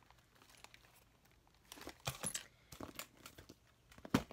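Clear vinyl handbag with gold metal clasps being handled: scattered rustling and small clicks, with one sharp metallic click near the end.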